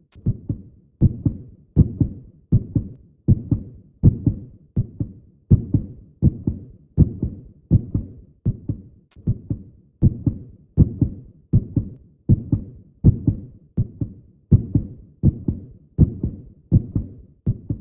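Low double thumps repeating steadily in a heartbeat rhythm, about eighty a minute, each a pair of dull beats.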